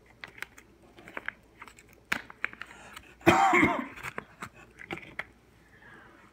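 Plastic zip bag crinkling and clicking as a poured silver bar is handled and slid out of it, with a brief loud cough a little over three seconds in.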